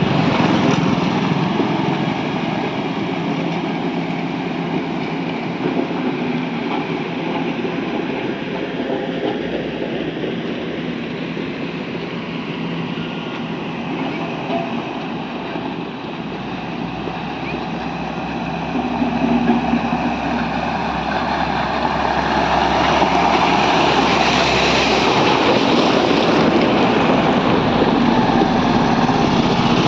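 Engines of heavy road-construction machinery running steadily while wet mix macadam is laid, growing louder over the last few seconds.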